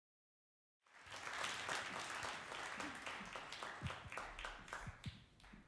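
Audience applauding, starting about a second in and thinning out to a few scattered claps near the end.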